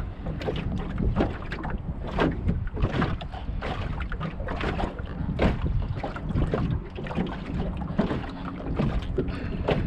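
Wind buffeting the microphone on a small jon boat, with a steady low rumble and frequent irregular knocks and slaps of small waves against the hull.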